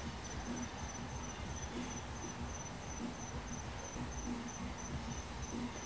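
Cricket chirping at night in a steady run of evenly spaced high chirps, over a low rumble.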